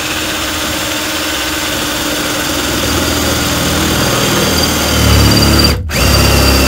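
Power drill with a 13 mm bit running under load, cutting through a spot weld in the Jeep's steel cargo floor pan. The sound grows louder and deeper about five seconds in as the bit bites. It stops for a moment just before six seconds in, then starts again.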